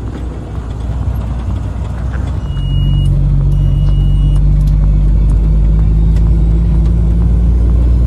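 Vehicle engine running steadily; about two and a half seconds in it gets louder and holds there. Two short high beeps sound just after that.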